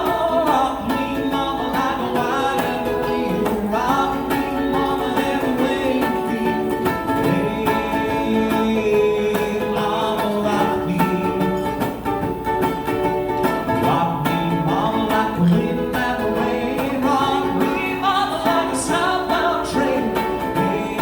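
Live country song: a singer with strummed acoustic guitar.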